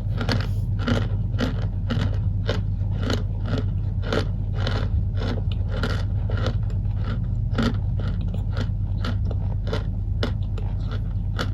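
Packed cornstarch crunching in a steady run of crisp crunches, about two a second, over a constant low hum.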